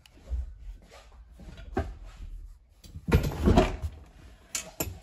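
A pickup truck's seat being lifted out of the cab: scattered knocks and bumps, with the loudest cluster of thuds and scraping about three seconds in, then two sharp clicks near the end.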